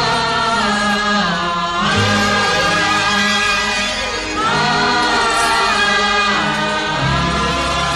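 Bollywood film-song interlude: a chorus singing wordless long phrases that slide down at their ends, over orchestral accompaniment with a steady bass.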